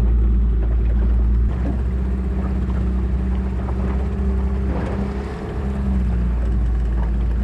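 Small fishing boat's motor running steadily at trolling speed, a low hum, with water rushing along the hull and wind.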